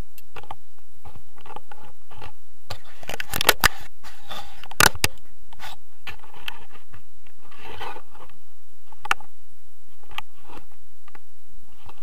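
Paraglider harness buckles and straps clicking and scraping as they are fastened and handled close to the camera, with a cluster of loud clicks about three to five seconds in.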